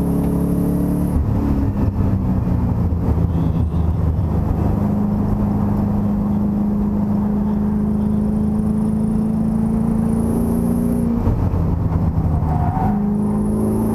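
Race car engine heard from inside the cockpit under power, easing off about a second in as the car slows for a corner. It pulls again steadily from about four seconds in with slowly rising pitch, with a short break near the end before it picks up again.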